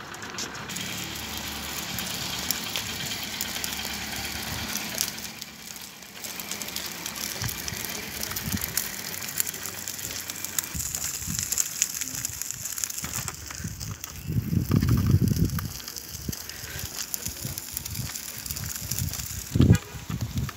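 Pushchair wheels rolling over wet asphalt and a gritty dirt path: a steady hiss with many small crackling clicks. A louder low rumble lasts about two seconds a little past the middle.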